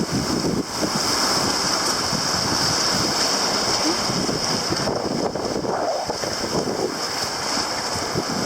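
Steady wind buffeting the microphone, with water rushing along the hull of a Mumm 36 sailboat.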